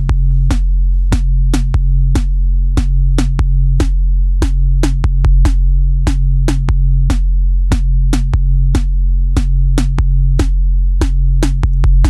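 Background electronic music: a drum-machine beat of sharp, evenly spaced hits over a steady deep bass.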